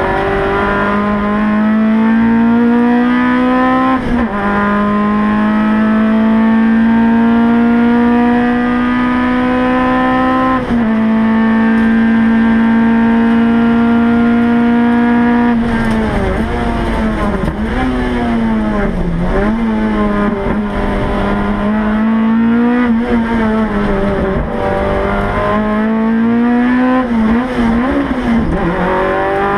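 Race car engine heard from inside the cabin, pulling hard with the revs climbing and dropping sharply at two upshifts, about four and eleven seconds in. It then holds steady along the straight, and in the second half the revs dip and rise repeatedly.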